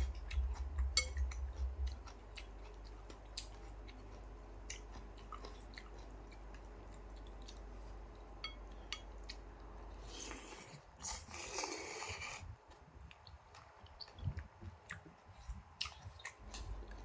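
A person eating a bowl of noodle soup: chewing, with many small clicks of a spoon and chopsticks against the bowl. About ten seconds in comes a hissing sound lasting a couple of seconds, likely a slurp of the broth.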